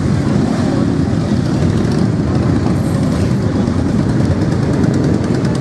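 Many motorcycle engines running as a column of bikes rides slowly past one after another, blending into one continuous engine noise.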